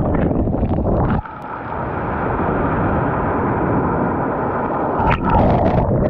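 Waves surging up a pebble beach and washing over a camera at the water's edge: a loud, dense rush of water, muffled while the lens is under the foam. It drops away suddenly about a second in, builds again, and there is a sharp splash about five seconds in.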